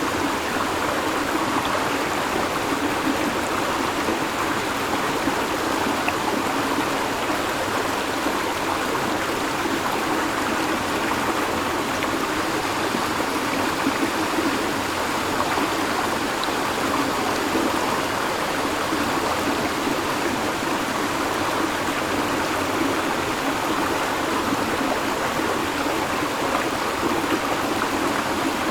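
River water flowing steadily over stones: a continuous, even rush of running water.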